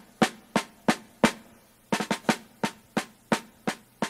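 Music: a snare drum beating a steady cadence of about three strokes a second, with a short pause about halfway through.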